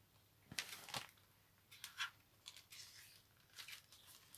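Faint, brief rustles and crinkles of a spiral-bound planner's plastic cover and clear plastic pockets being handled and turned, the two strongest about half a second and a second in, with a sharp click at the end.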